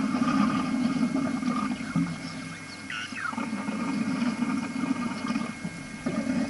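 Steady low rushing noise on an outdoor microphone, with a short bird call about three seconds in.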